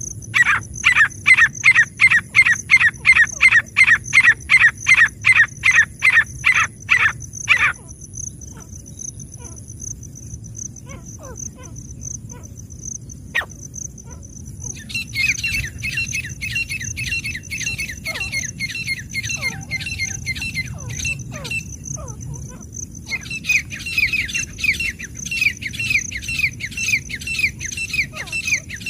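Francolin (teetar) calling in rapid series: loud downward-sweeping notes about three a second for the first seven or so seconds, then a pause with faint clicks. From about halfway a quicker run of shorter descending notes starts softly and grows louder near the end, with a thin steady high tone behind throughout.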